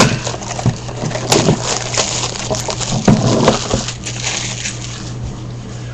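A sealed box of trading cards being torn open: the wrap and cardboard crinkle and crackle with many scattered sharp clicks. A steady low hum runs underneath.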